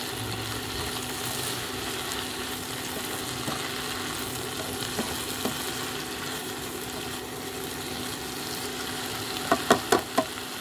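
Sweet leaf (phak wan) greens sizzling in hot oil with garlic and chili in a nonstick pan as they are stir-fried and tossed with a slotted spatula, over a steady low hum. A few short, sharper sounds near the end.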